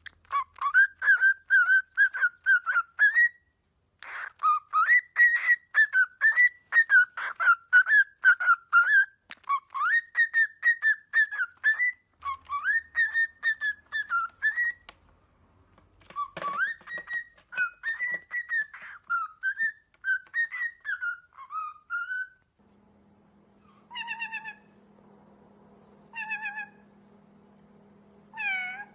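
A parrot whistling: quick runs of chirpy, wavering whistled notes, one after another, in stretches of a few seconds for about twenty seconds. Then, over a steady low hum, three short separate calls come about two seconds apart.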